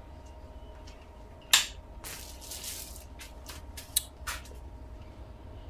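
Handling noises on a workbench: a sharp knock about a second and a half in, a second of rustling, then a few light clicks, over a faint steady hum.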